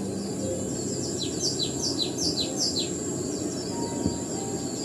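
A small bird chirping: a quick run of short, high, falling chirps, about three a second, over a steady open-air background hiss.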